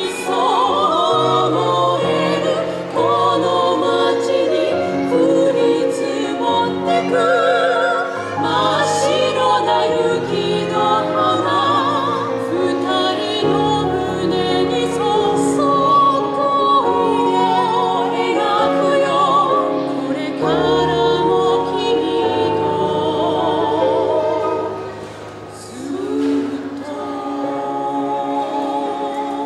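Three female voices singing in close harmony in a classical style, with vibrato. A keyboard holds low bass notes underneath, changing every second or two. There is a short lull about four-fifths of the way through before the singing picks up again.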